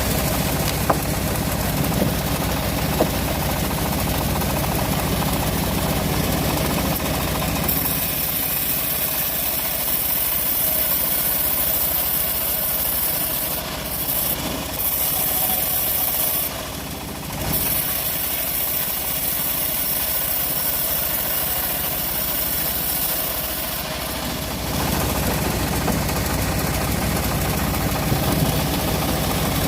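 Engine-driven homemade bandsaw sawmill running steadily while it works a teak log. About eight seconds in, the sound shifts and a high hiss comes in; it shifts back about twenty-five seconds in.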